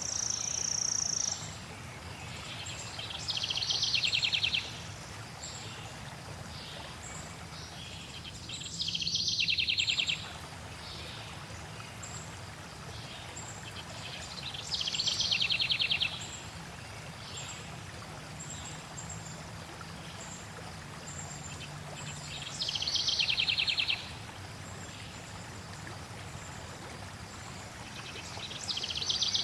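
A songbird singing a rapid trill about one and a half seconds long, repeated every six or seven seconds, over a steady rush of flowing water.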